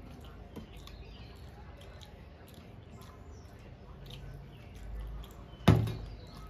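Faint clicks and scrapes of hands mixing rice and curry on steel plates, then a metal serving bowl set down on the table with one sharp clunk about five and a half seconds in.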